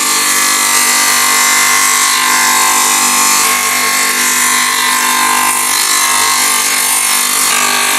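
Motor-driven disc sander running steadily while a wooden machete-sheath blank is pressed against the spinning abrasive disc: a constant sanding hiss over the motor's hum as the wood is ground flat.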